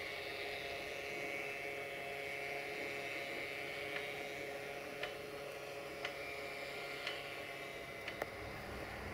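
CFR 060-DA diesel-electric locomotive running at low speed: a steady engine hum with a whine above it. From about four seconds in, a sharp click comes roughly once a second as the wheels cross rail joints.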